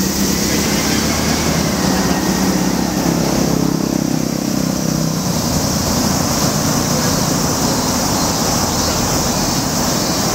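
Roadside traffic on a busy multi-lane road: a passing vehicle's engine runs close for the first five seconds or so, then fades into the steady wash of traffic, with a steady high hiss over it.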